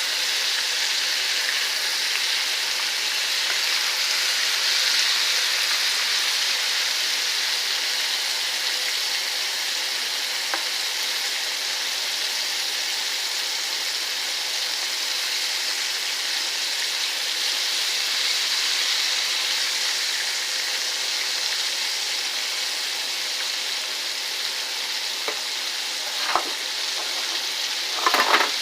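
Ribs coated in seasoned flour deep-frying in hot oil, a steady sizzle throughout. A couple of short knocks near the end.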